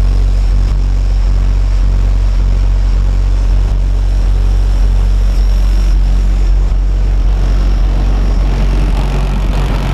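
Eight Sundown Zv.4 15-inch subwoofers in a van playing a loud, steady, deep bass note, heard from outside the vehicle.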